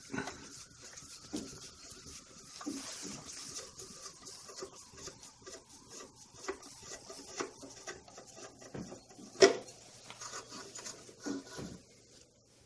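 Phillips screwdriver working a screw out of a Rancilio Rocky coffee grinder's cover: faint rasping and small clicks, with one sharp click about nine and a half seconds in.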